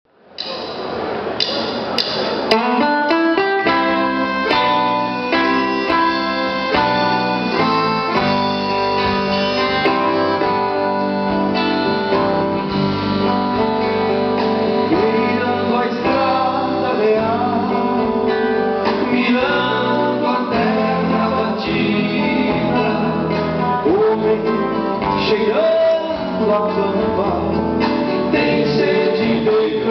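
Live band music: accordion, acoustic and electric guitars and drums playing together, with a man singing into a microphone.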